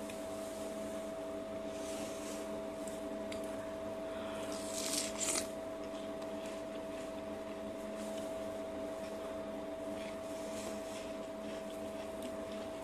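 A steady machine hum made of several fixed tones, unchanging throughout, with a brief soft rustle about five seconds in.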